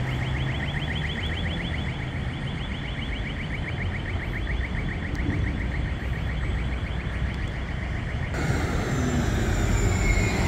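An electronic alarm sounding as a rapid train of repeating high chirps, fading out about four seconds in, over a steady low rumble of traffic. About eight seconds in the sound changes abruptly to louder traffic and wind noise.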